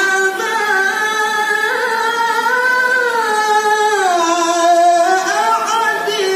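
A high male voice chanting Quran recitation (tilawah) in the melodic style of a qari, amplified through a microphone. One long melismatic phrase is held without a break, rising slightly, then sliding down in pitch about four seconds in and climbing back near the end.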